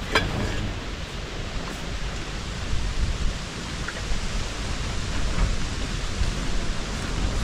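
Steady rain and wind of a storm, with a low wind rumble on the microphone and a short click right at the start.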